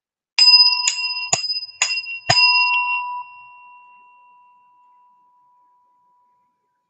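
A bell struck five times, about two strikes a second, each strike giving the same bright ringing tone. After the last strike it rings on and slowly fades away.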